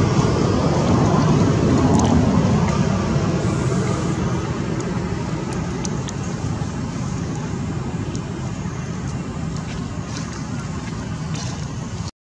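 Steady rumbling background noise of distant road traffic, growing gradually quieter over the first few seconds.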